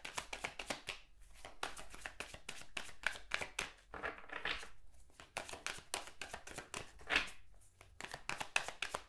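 A deck of tarot cards being shuffled by hand: a dense, irregular run of quick clicks and soft taps as the cards slide and knock against each other.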